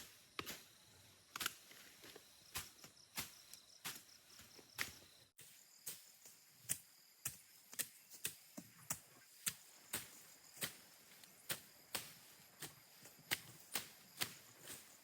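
Repeated chopping strokes of a hand tool cutting into bank vegetation and soil, a little more than one blow a second at an uneven pace. Insects drone steadily underneath.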